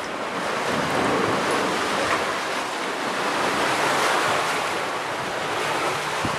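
Steady rushing wind, an even hiss that keeps on without breaks.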